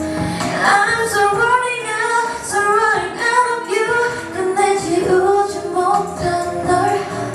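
A female vocalist singing a pop song over musical accompaniment, her voice gliding between sustained notes.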